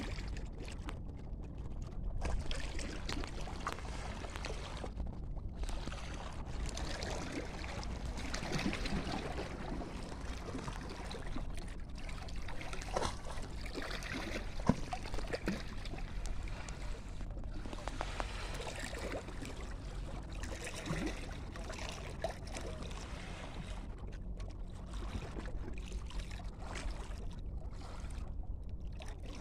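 Calm sea with small waves lapping and washing in gently, over a steady low rumble.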